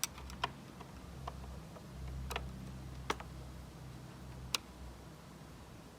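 Old water draining from the opened boiler drain points of a Breville BES920 Dual Boiler espresso machine into its drip tray. It is heard as sparse, irregular ticks and clicks over a low, steady hum.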